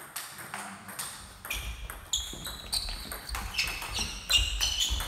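Table tennis ball clicking against bats and the table in a rally, a series of sharp clicks with short high squeaks mixed in.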